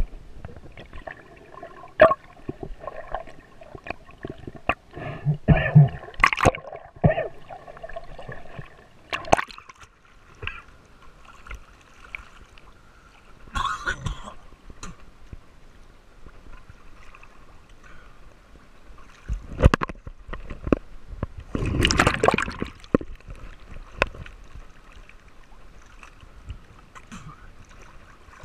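Water sloshing and gurgling around a GoPro camera held in the water while snorkeling. Irregular clicks and knocks run through it, with a few louder surges of splashing; the biggest comes about two-thirds of the way through.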